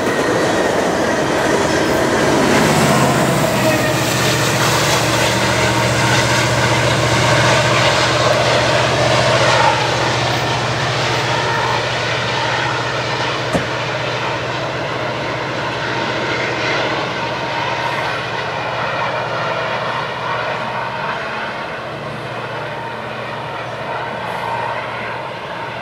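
Freight train of covered hopper cars rolling past on jointed track, then the rear pushing locomotive, a CN SD70M-2 diesel-electric with an EMD two-stroke engine, passing with a steady engine drone that slowly fades as it moves away.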